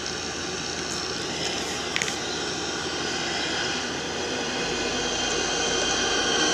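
A vehicle engine running with a steady whine and rushing noise that grows gradually louder. A deeper hum joins about two-thirds of the way through.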